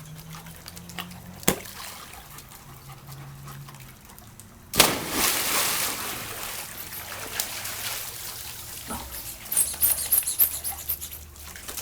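A dog jumping into a swimming pool: a sudden big splash about five seconds in that fades into sloshing water, with lighter splashing near the end. A single sharp click comes about a second and a half in.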